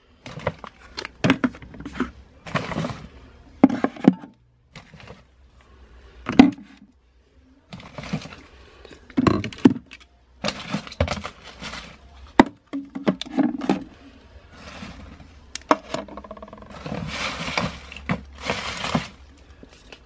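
Plastic hair-product bottles and aerosol cans being set down and moved about on a shelf: irregular knocks, clatters and scrapes, with a longer rustling stretch near the end.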